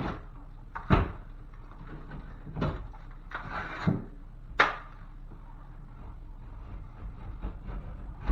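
Drywall being cut and worked by hand with a utility knife: a few sharp knocks and one short scraping stroke about three and a half seconds in.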